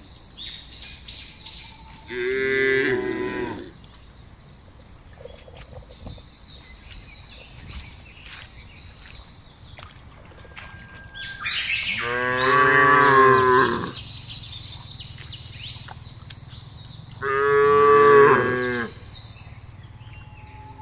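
Cattle mooing: three calls, a short one about two seconds in, a long loud one near the middle and another near the end.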